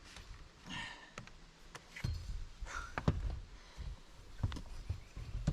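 Scattered knocks, thunks and clicks of handling work, a few sharp ones about three seconds in and again near the end, with brief faint voice sounds in between.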